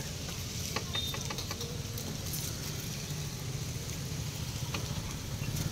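Steady low street rumble, with a few light clicks and taps as a street-food vendor handles food and steel pots.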